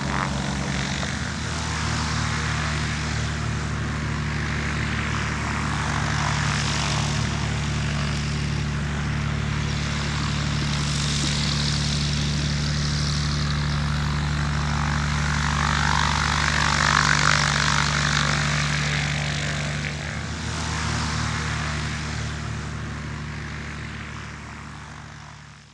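Single-engine high-wing light airplane, its piston engine and propeller droning steadily as it comes in low over a grass airstrip. The engine note changes slightly a couple of times, grows a little louder around the middle, and fades out near the end.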